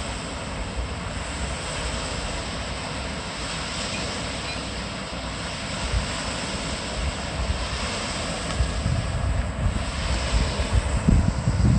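Steady rush of water pouring over a concrete spillway, with gusts of wind rumbling on the microphone, stronger near the end.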